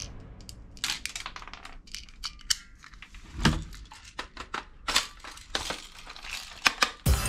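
Hard plastic parts of a toy submachine gun clicking and clattering as it is handled and its magazine is taken out. There are scattered light clicks, with sharper snaps about three and a half, five and seven seconds in.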